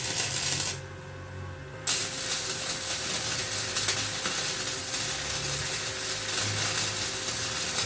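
Electric welder tack-welding on a Jeep CJ5's steel body tub: a steady hiss of the arc that stops for about a second near the start, then runs on.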